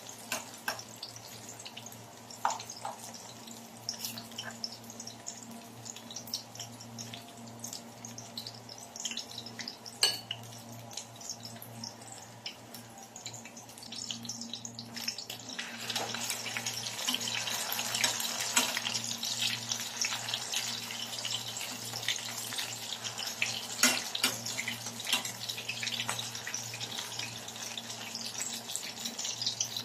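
Dulong fritters frying in shallow oil in a pan, a steady sizzle and crackle that grows louder about halfway through, after they are turned with metal tongs. A few sharp taps of the utensils on the pan, and a low steady hum underneath.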